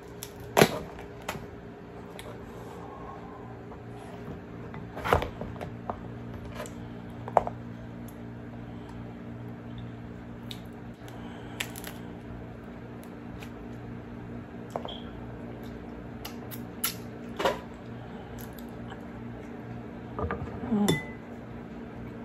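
Cooked king crab shell being broken apart by hand: sharp cracks and snaps every few seconds as the legs are twisted off the body. Near the end comes a short burst of crunching as kitchen scissors cut into the shell of a leg.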